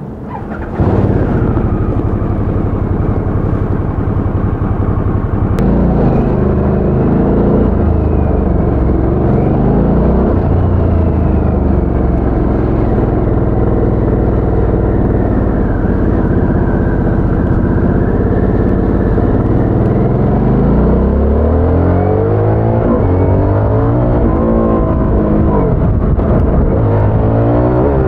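A 2022 Harley-Davidson Sportster S's Revolution Max 1250 V-twin running through its stock exhaust. It comes in loud about a second in and runs steadily for a few seconds. Then the revs rise and fall repeatedly, with long climbs in pitch as it accelerates near the end.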